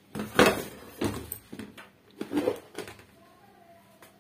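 Knocks and clatter of spice containers being picked up and set down on a steel kitchen counter, the loudest about half a second in, then a few lighter taps.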